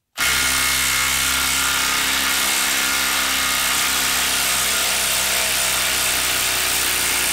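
Hilti SID 2-A12 12-volt brushless impact driver hammering steadily as it backs a lag screw out of a wooden block. It starts just after the outset and runs on at an even pitch and level.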